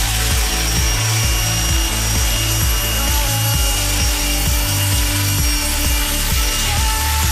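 Radio-controlled model helicopter running at flight speed, a steady buzzing whine from its motor and spinning rotors as it lifts off and climbs away.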